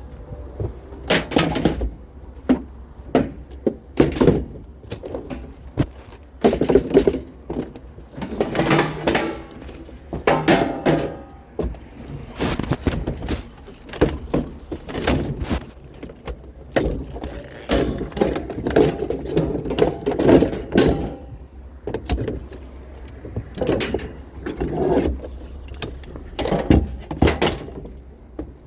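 Junk being rummaged through and handled: a busy run of knocks, clatters and scrapes as items are pulled out and moved, over a steady low rumble.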